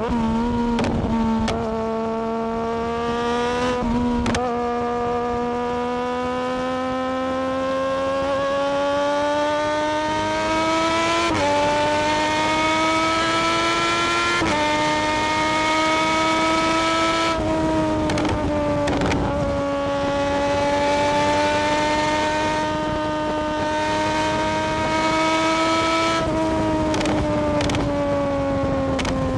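Triumph Daytona 675R's inline three-cylinder engine pulling steadily while riding, over wind noise. Its pitch climbs slowly, steps through shifts about 11, 14 and 17 seconds in, dips, climbs again and eases off near the end.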